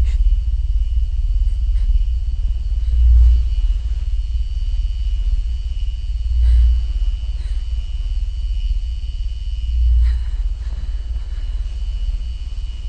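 A deep, low rumble that swells and fades evenly about every three and a half seconds, with a faint steady high whine above it.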